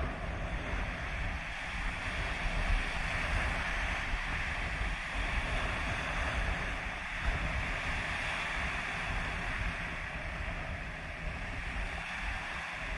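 Small waves breaking and washing up a pebble beach in a steady surf, with wind buffeting the microphone as a low rumble.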